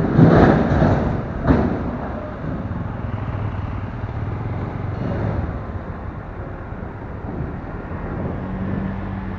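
Engine and road noise of a vehicle driving along, with loud rumbling gusts and two sharp knocks in the first two seconds, then a steadier running noise with a low hum that grows stronger near the end.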